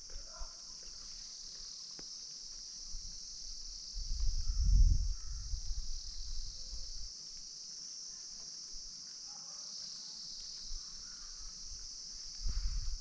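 Steady high-pitched insect chorus from the forest, running unbroken. Twice it is joined by a short low rumble, about four seconds in and again near the end; these are the loudest moments.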